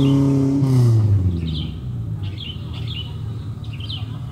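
A Suzuki Katana off-roader's engine is revved, then drops back to a low idle about a second in. Small birds chirp repeatedly over the idle.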